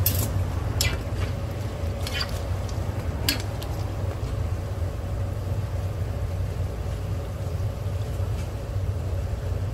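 Hotteok frying in a shallow pan of oil under a steady low rumble. Metal tongs click four times in the first three and a half seconds.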